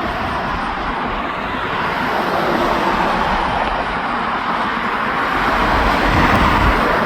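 Steady road and wind noise of a vehicle driving along a highway: a continuous rushing with a deep rumble underneath, growing slightly louder about six seconds in.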